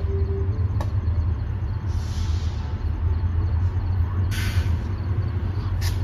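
Steady low rumble of a train standing at the station, with two short hisses of released air about two and four seconds in, and a couple of faint clicks.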